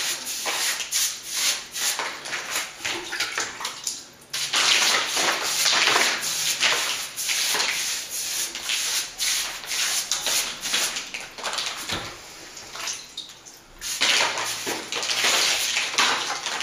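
Wet paint brush scrubbing back and forth over a bare cement slab ceiling in quick repeated swishing strokes, wetting the concrete down before plastering. The strokes stop briefly about four seconds in, go softer past the middle, and pick up again near the end.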